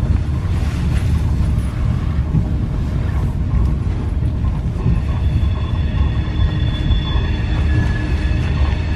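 Passenger train interior: steady low rumble of the train rolling slowly. About halfway through, a high, steady metallic squeal of several tones sets in over the rumble as the train slows into the station.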